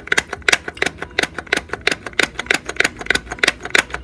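Plastic toy doll blender being pumped by pressing its push-down top over and over to mix a drink: a quick, even run of plastic clicks, about three to four a second.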